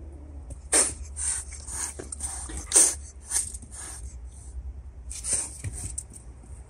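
A cat hissing in a run of short, sharp bursts, the loudest about a second and about three seconds in.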